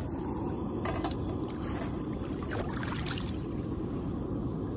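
Lit propane canister camp stove burning with a steady rushing noise, with a few faint light clicks as a frying pan is handled and set on its grate.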